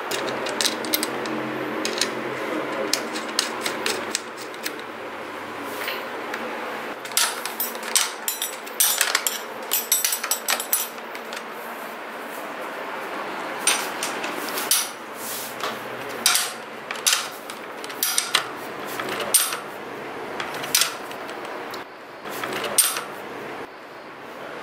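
A metal spanner clinking and knocking on a bicycle's front axle nut and fork dropout as the front wheel is fitted and the nut tightened: irregular sharp metallic clinks that come in clusters.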